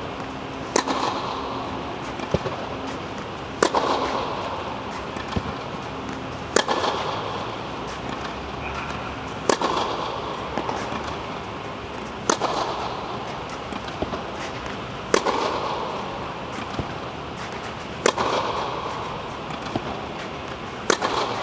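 Tennis racket striking the ball on groundstrokes: eight sharp hits, one about every three seconds, each with a short echo, and fainter knocks between the hits.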